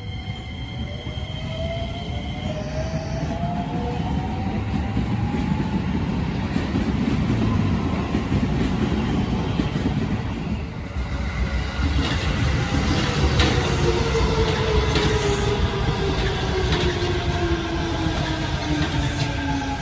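Shin-Keisei electric commuter train pulling away from a platform: a motor whine rises in pitch as it gathers speed over a steady running rumble. In the second half a second whine falls in pitch, and the wheels click over rail joints as the cars pass.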